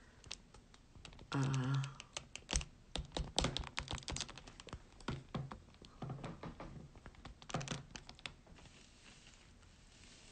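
Handling noise from a smartphone being picked up and turned around: irregular clicks and taps, thickest two to four seconds in and again near eight seconds, with a brief murmur of voice about a second and a half in.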